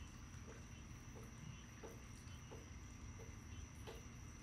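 Near silence: faint room tone with a steady thin high whine and soft, regular ticks about every 0.7 seconds.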